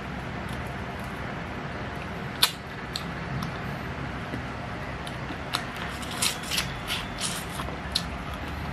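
Close-miked mukbang eating sounds: a single sharp click about two and a half seconds in, then a run of short clicks and crunches in the second half, over a steady low hum.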